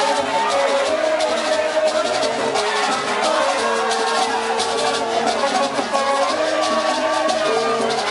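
Haitian rara band playing: long steady held notes that shift every second or two, over rattling shakers and drums.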